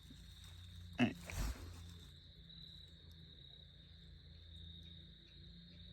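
Insects in the woods giving a steady high-pitched drone, with a couple of short, loud knocks about a second in.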